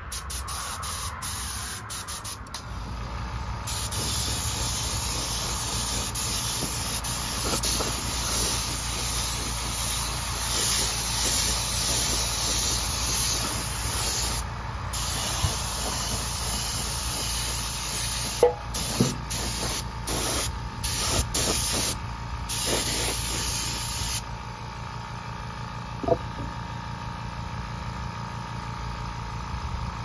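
Paint being sprayed: a steady hiss of spray, with a short break early on and another about halfway. It then goes to a string of short bursts and stops about three-quarters of the way through.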